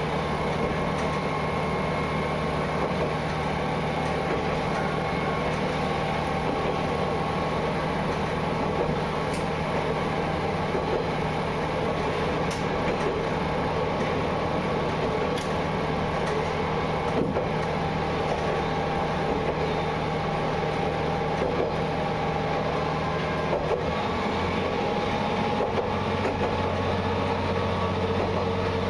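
Diesel railcar engine running steadily as the train travels along the track, heard from the front of the car. Its engine note drops lower about 24 seconds in, and a few faint clicks come through.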